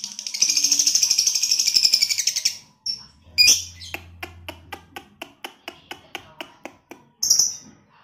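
Caged lovebird singing a fast, high, continuous chatter that breaks off about two and a half seconds in, then a run of short ticks about five a second with a sharp high chirp near its start and another near the end.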